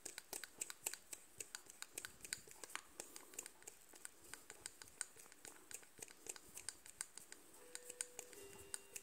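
Faint, quick light clicks of a steel Dan Wesson 15-2 revolver barrel being turned by hand into the frame's threads, a few clicks a second.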